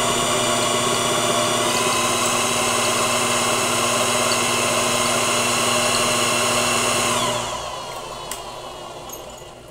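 Small brushed motor running fast with a steady whine and brush hiss, belt-driving a three-phase motor wired as a generator that is charging a battery. About seven seconds in it is switched off and winds down, the whine falling in pitch and fading.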